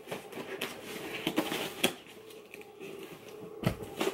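Scissors cutting through a cardboard shipping box: irregular snips and crunches of the blades through the board, with rustling as the box is handled and a heavier knock of the box near the end.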